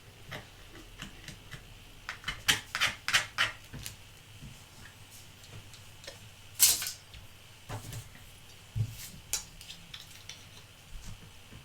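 Irregular sharp clicks and taps of small hard plastic pieces being handled: a quick run of clicks a few seconds in, one louder snap about two-thirds of the way through, then scattered lighter taps.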